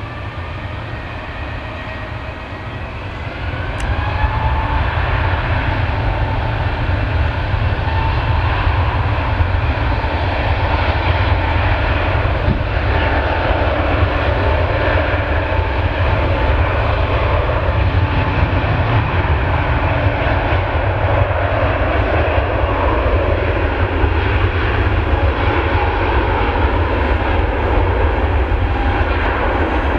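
Airbus A380's four jet engines at takeoff thrust during the takeoff roll: a loud, deep roar with a steady whine over it, stepping up in loudness about four seconds in and then holding steady as the airliner accelerates down the runway.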